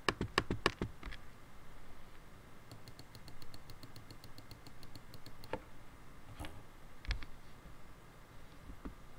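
Computer keyboard and mouse clicks: a quick run of sharp keystrokes at first, then a fast even run of light ticks for a couple of seconds, then a few single clicks.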